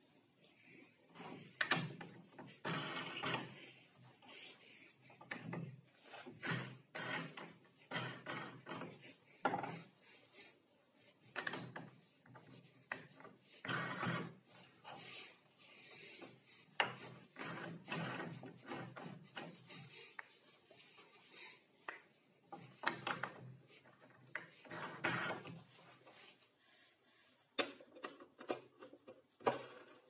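Plywood star knobs being handled and spun by hand on their threaded bolts: irregular bursts of wood rubbing and scraping, with light knocks and clicks.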